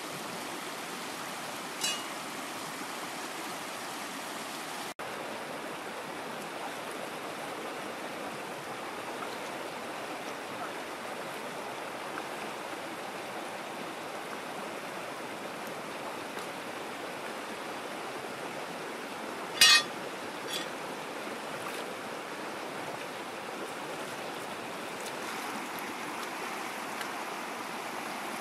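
Fast, shallow river rushing over rocks in rapids: a steady wash of water noise. A single brief, sharp knock stands out about two-thirds of the way through, with a fainter click shortly after and another near the start.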